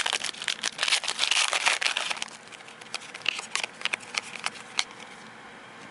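Foil wrapper of a 2009 Topps Unique baseball card pack crinkling and tearing as it is ripped open, dense for about two seconds. Then a few scattered crackles and clicks as the cards are pulled from it, dying away near the end.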